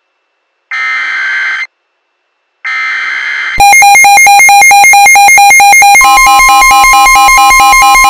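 Emergency Alert System SAME header data bursts, two short screechy digital squawks with a pause between them. About three and a half seconds in, a weather alert radio's alarm begins: a loud, rapid pulsing beep. Near six seconds it is joined by a steady warning tone, typical of the NOAA Weather Radio 1050 Hz alert tone, signalling an incoming warning.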